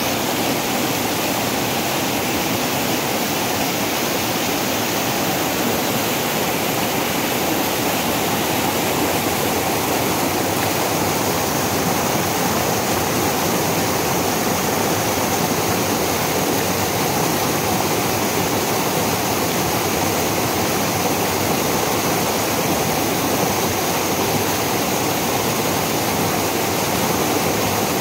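Small waterfall on a rocky mountain stream, water cascading over boulders in a steady, unbroken rush.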